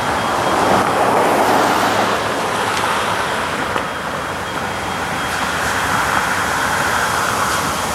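Norfolk Southern diesel locomotive running as it slowly approaches, a steady engine and rolling rumble with road traffic mixed in, a little louder about a second in.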